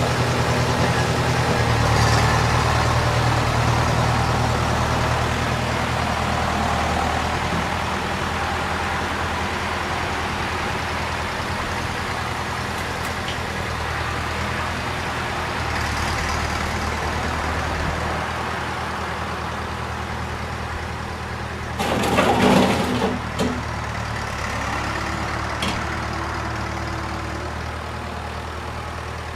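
Tractor engine running at a steady speed, with a brief louder rush about two-thirds of the way through.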